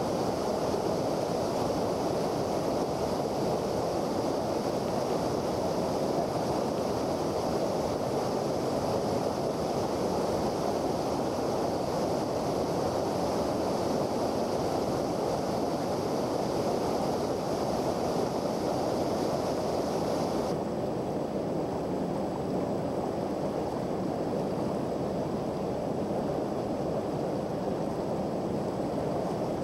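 Creek whitewater rushing steadily, with water pouring over a rock ledge and churning through a rapid. The high hiss drops away about two-thirds of the way through.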